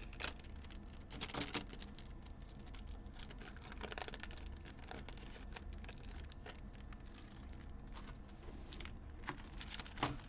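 Clear plastic sleeve of a pack of metallic foil origami paper crinkling as it is handled and the foil sheets are slid back inside: a running patter of small crackles, with a louder flurry near the end.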